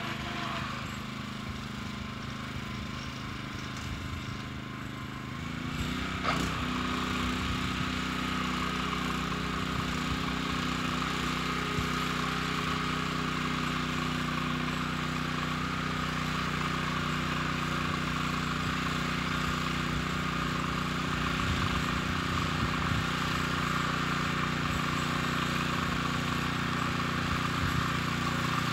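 Walk-behind tractor engine running steadily while ploughing. About six seconds in its pitch steps up and it grows louder as it is throttled up, with a single sharp knock just after.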